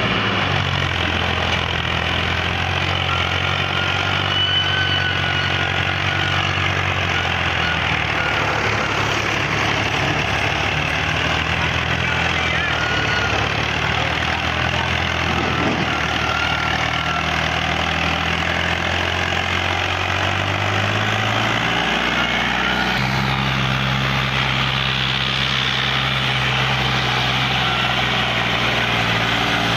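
New Holland Ghazi tractor's diesel engine running steadily under load, pulling a heavy trolley of sugarcane; its pitch steps up about two-thirds of the way through as the engine speeds up.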